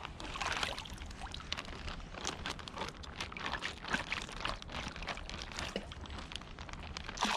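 Water splashing and pouring as a clear plastic zip-top bag is dipped into the water and lifted out, spilling in irregular splashes and trickles.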